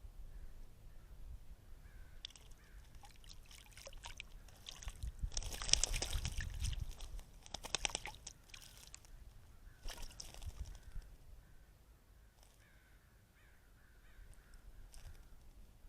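Cooper's hawk splashing in a bird bath: water splashing in bursts, loudest a third of the way in and again briefly later, with faint bird calls in the background.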